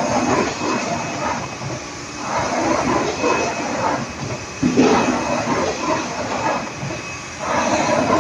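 SL-V8 pulp-molding grooving machine running, its cutting heads cutting V-grooves in paper-pulp moulded parts with a noisy hiss and a faint high whine. The noise swells and fades every couple of seconds.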